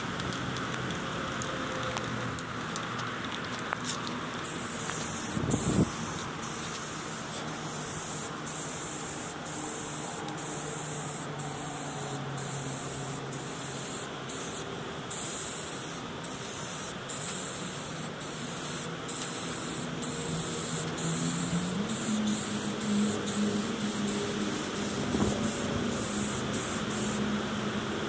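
Primer being sprayed onto a boat's gas tank: a loud hiss that starts about four seconds in and keeps breaking off for a moment as the spray stops and starts. A low steady hum runs underneath and rises in pitch near the end.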